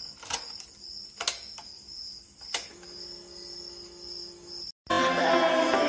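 A few sharp clicks of a key being put into and turned in a Hero motorcycle's ignition switch, over a steady high chirring of crickets. A low steady hum comes in partway through. Near the end the sound cuts out briefly and loud background music starts.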